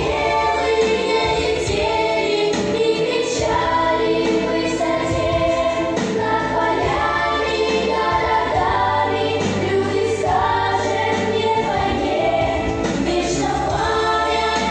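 Children's choir singing a song in held notes over an instrumental backing.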